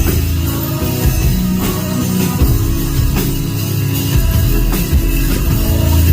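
Rock band playing a song at a soundcheck: a drum kit keeping a steady beat under guitar.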